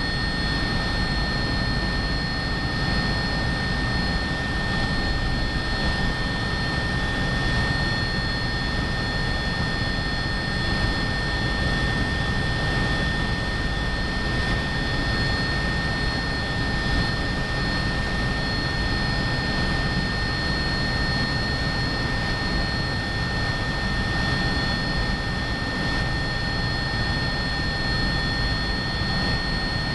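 Cabin noise of an Agusta A109BA helicopter in cruise: its twin turboshaft engines and rotor give a steady heavy rumble with a constant high-pitched whine over it.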